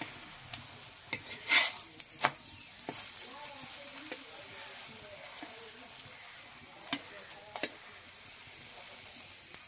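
Tal (palm-fruit) paratha shallow-frying in white oil in a blackened iron pan, a steady sizzle, while a flat metal spatula presses and scrapes it against the pan. The spatula gives a cluster of sharp scrapes and taps in the first couple of seconds, the loudest about one and a half seconds in, and two more a little past the middle.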